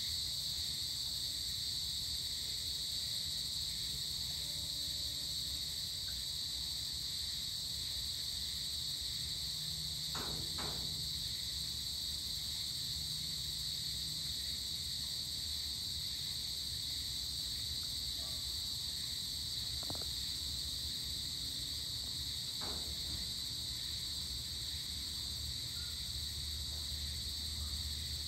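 Insects, such as crickets, chirring steadily at dusk in one continuous high-pitched drone. A few faint, brief knocks sound about ten, twenty and twenty-three seconds in, over a faint low background rumble.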